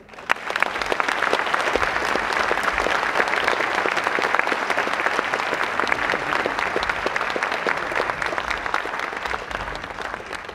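Audience applauding, many hands clapping together; it starts abruptly, holds steady and thins out near the end.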